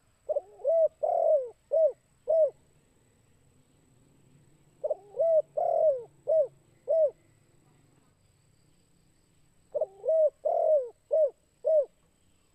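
Spotted dove cooing in the 'kuk 2' song type: three phrases about five seconds apart. Each phrase opens with a couple of quick coos and a longer rolled coo, then ends on two short, separate notes.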